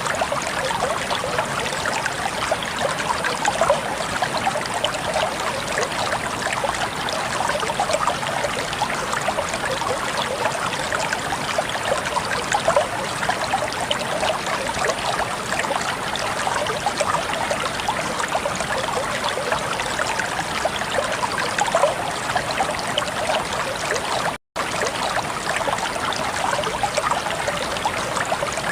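Steady running water, like a babbling stream, with a dense fine crackle and no change in level. It cuts out for an instant about 24 seconds in.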